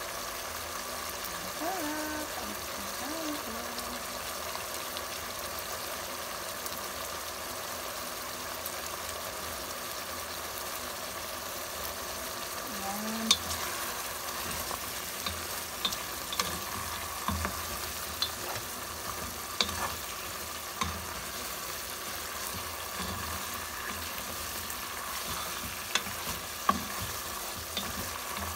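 Chicken curry simmering in a pot, a steady bubbling hiss. From about halfway through, a spoon stirs the pot, with sharp clicks as it knocks against the pot's side.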